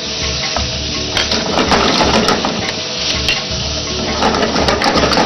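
Chicken pieces sizzling as they sauté in butter in a frying pan, with a wooden spatula stirring and scraping them around the pan in repeated short strokes.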